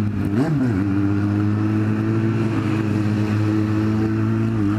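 Kawasaki Z750's inline-four engine running at a steady cruising speed, with a brief rise and fall in pitch about half a second in.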